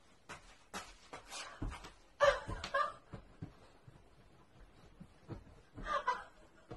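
A woman laughing in short bursts, with faint knocks and shuffling as a large dog climbs onto the sofa and into her lap.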